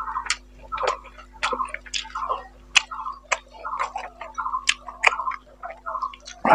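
Close-up eating sounds: rice and fish curry being chewed with wet mouth clicks and lip smacks in a steady rhythm, a little over two a second. A louder, noisy burst comes right at the end.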